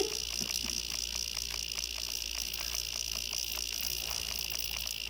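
A cicada buzzing steadily: a shrill, high drone with a fast, even ticking running through it.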